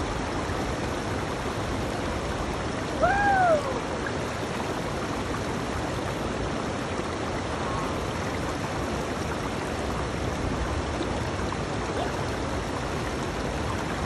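River water rushing steadily over rocks through a small whitewater cascade. About three seconds in, a short high call rises and falls once above it.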